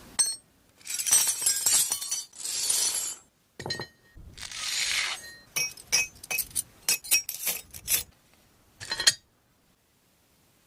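Sharp ringing clinks and crashes, glassy or metallic: three noisy, crashing bursts of about a second each, then a quick run of about ten clinks, ending about nine seconds in.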